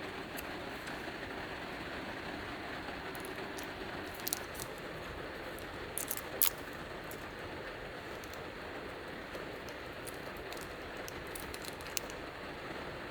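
Heavy rain beating on the roof of a Subaru Sambar kei van, a steady even hiss with a few sharper ticks now and then.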